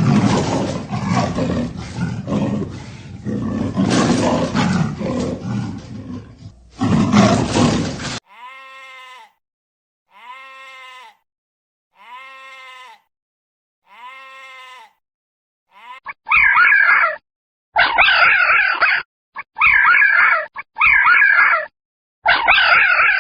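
Farm animals calling. First comes about eight seconds of loud, rough calling, then four separate pitched calls evenly spaced about two seconds apart, then a run of about six loud calls close together near the end.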